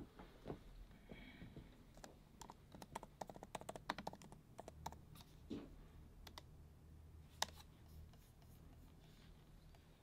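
Faint, irregular light clicks and taps, coming thickest from about two to six seconds in, with one sharper click near the end.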